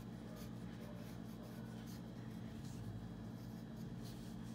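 Hand-writing on a sheet of paper: soft, irregular scratches of the pen strokes as the words 'Costo de Venta' are written, over a steady low hum.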